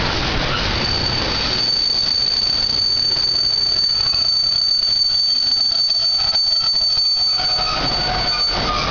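Freight train of car-carrier wagons loaded with vans rolling past at close range. A steady high-pitched wheel squeal starts about a second in and holds almost to the end.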